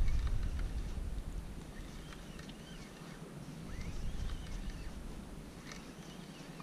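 Low rumbling buffeting on the action-camera microphone that fades over the first two seconds, with faint, short, high chirping calls scattered through it.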